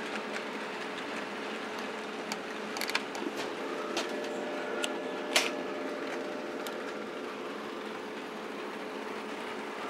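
HO-scale model trains running on the layout's track: a steady electric-motor whir with wheel and rail noise. A few sharp clicks fall around the middle, the loudest about five seconds in.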